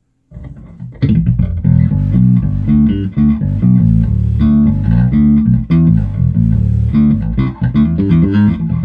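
Electric bass guitar played through a bass amp head, a busy run of plucked notes with a deep, full low end, starting about a second in.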